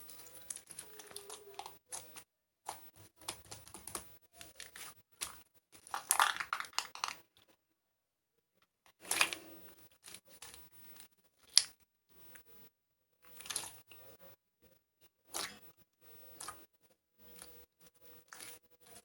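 Hands squishing and stretching a sequin-filled slime: sticky crackles, pops and tearing sounds in irregular bursts, with a short pause about eight seconds in.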